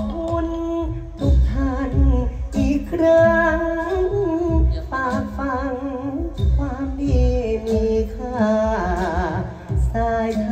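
Thai likay singing: a solo voice carries a wavering, heavily ornamented melody over accompanying music with low drum beats about every second or so.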